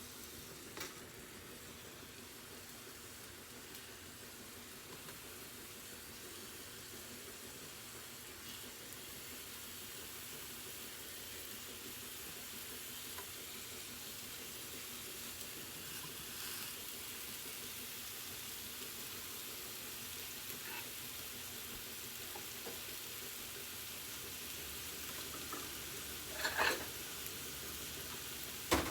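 Food sizzling in a frying pan: a steady hiss that slowly grows, with a few light clicks and a short clatter near the end.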